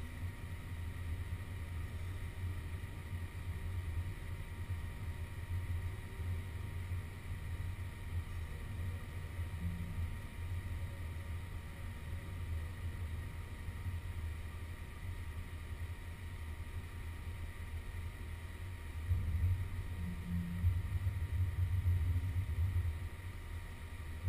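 Haas VF2 CNC vertical mill running: a steady low hum with faint steady whine tones above it, swelling louder for a few seconds near the end.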